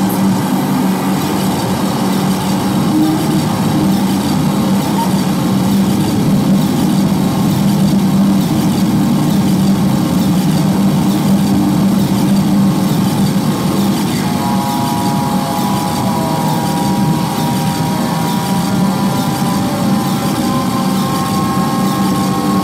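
Live harsh noise music from electronics and effects pedals played through a PA: a dense, steady wall of noise over a low drone. About two-thirds of the way through, thin high tones join in, one of them slowly rising in pitch.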